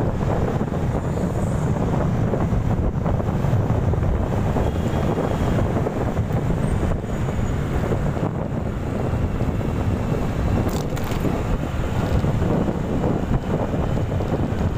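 Steady wind rush on the microphone from riding a moving motorcycle, with the motorcycle's engine and road noise beneath it.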